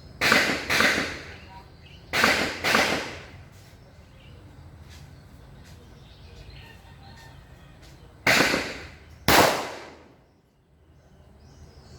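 Six gunshots at a shooting range, fired in three pairs: two quick doubles about half a second apart near the start, and a third pair a little over a second apart late on. Each shot is a sharp crack with a short echo.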